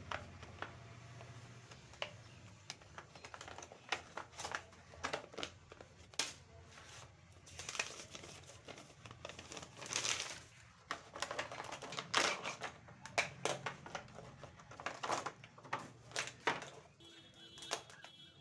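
Packaging and a new multimeter handled by hand: irregular crinkling and rustling with scattered clicks and taps. A brief high tone sounds near the end.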